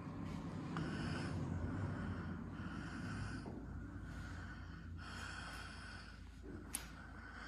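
Breathing close to the microphone, several breaths a couple of seconds apart, over a low steady rumble, with one sharp click near the end.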